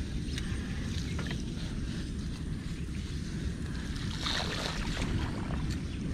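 Wind rumbling on an action camera's microphone as a mountain bike rides along a bumpy, muddy dirt track, with scattered light clicks and rattles from the bike. A brief scratchy burst comes about four seconds in.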